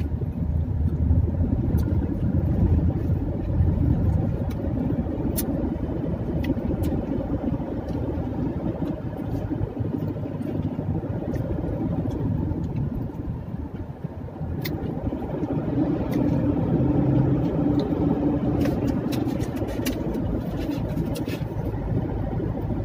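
Steady engine and road rumble inside a moving car's cabin, with a few light clicks, most of them near the end.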